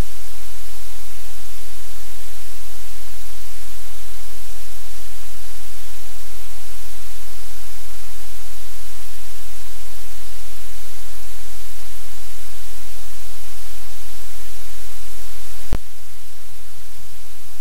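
Loud, steady static hiss with a low hum under it, from the camera's audio feed. One sharp click comes near the end, and the hiss drops slightly after it.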